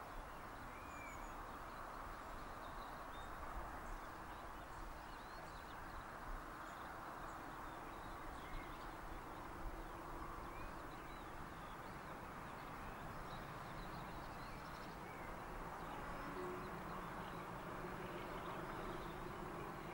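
Small birds chirping now and then over a faint, steady rumble and hiss of open air.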